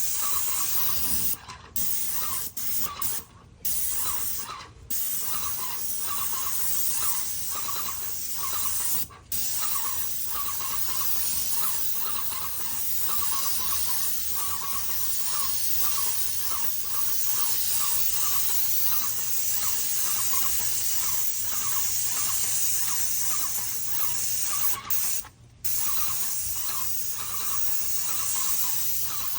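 Paint sprayer spraying: a steady high hiss with a faint pulsing about twice a second. The spray breaks off for a moment a few times.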